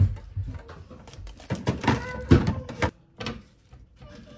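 Kitchen handling clatter: plastic packaging and a plastic tray rustled and set down on a stainless-steel counter, with a quick run of clacks and knocks in the middle, then a few light taps.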